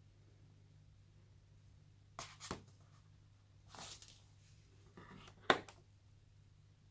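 Hands handling small phone accessories and a cardboard box insert: two light taps about two seconds in, a brief scraping rustle near four seconds, and a sharp click at about five and a half seconds, the loudest sound, as an accessory is pulled from the tray.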